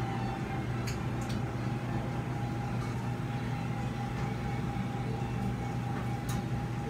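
Steady hum of operating-room equipment, with a low drone and a constant mid-pitched tone, and a few faint clicks about a second in and again near the end.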